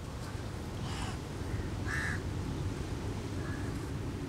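A crow cawing three times: about a second in, louder at two seconds, and faintly near the end, over a steady low background rumble.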